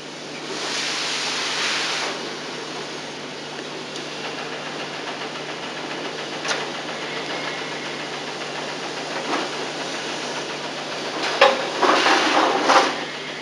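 Hand work on a car seat as pins are withdrawn: a scraping rustle near the start, a couple of faint clicks, and a louder scrape with a click near the end, over a steady hiss and low hum.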